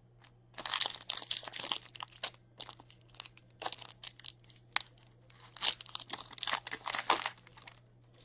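Wrapper of a hockey card pack being torn open and crinkled by hand. It is a dense crackle in two spells, the second one longer, and it stops shortly before the end.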